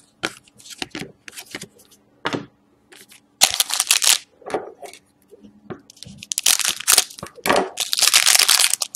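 A few light clicks and rustles of trading cards being handled. Then the foil wrapper of an Upper Deck SP Game Used hockey card pack is crinkled and torn open, in loud rustling bursts about three and a half seconds in and again through the last three seconds.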